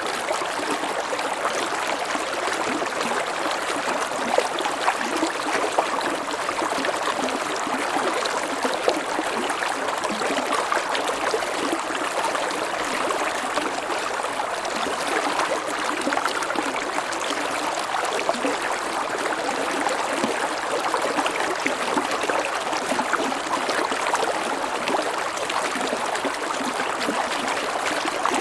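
Stream water flowing steadily over a gentle waterfall, with a continuous rushing and gurgling.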